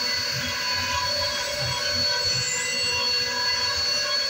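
CNC wood router machine giving off a steady high-pitched whine made of several held tones, over a low, uneven rumble.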